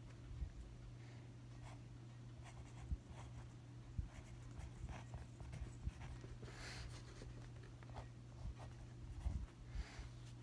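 Pen writing on paper in short scratchy strokes, with a few light knocks of the hand or pen against the table, over a low steady hum.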